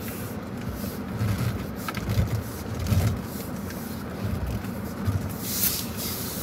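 Steady low hum of a parked car running with the air conditioning on, heard inside the closed cabin. There are faint handling clicks, and a brief rustling hiss comes near the end.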